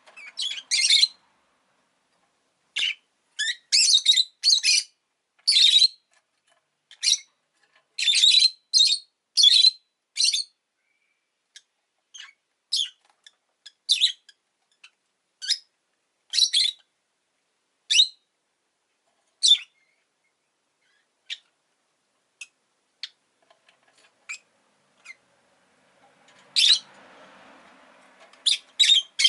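Rosy-faced lovebird chirping: short, sharp, high-pitched chirps in quick runs for the first ten seconds or so, then single chirps more spaced out.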